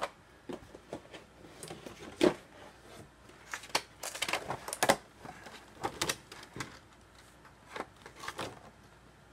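Irregular clicks and clatter of plastic miniature trays and packaging being handled and set down on a cloth-covered table, with a sharp knock about two seconds in and a busy run of clicks around four to five seconds in.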